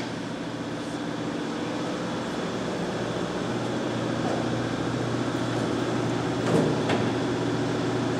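Steady machine hum, like a fan or air-conditioning unit running. A short knock comes about six and a half seconds in.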